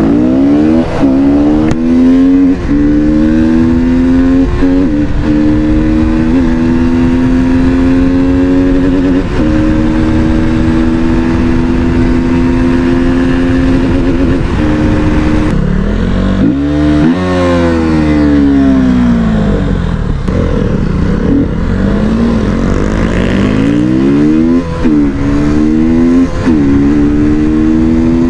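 KTM Duke's single-cylinder engine, its exhaust cap removed to change the note, riding and accelerating through the gears. The pitch climbs with a short dip at each shift, holds steady, drops as the bike slows about halfway through, then climbs through the gears again.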